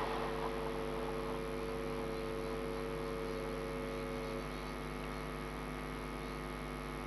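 Steady electrical hum made of several steady tones, slowly fading; one of the middle tones drops out about four seconds in.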